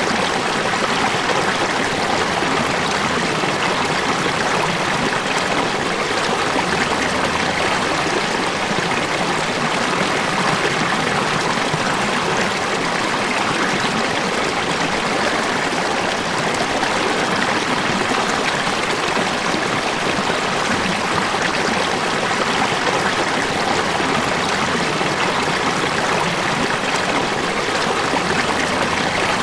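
River water running over rocks, a steady rushing and babbling with no change in level.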